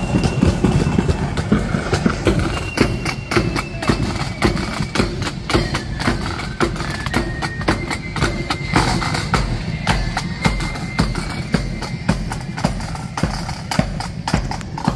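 Marching flute band playing: a high flute melody over a steady beat of side drums and a bass drum.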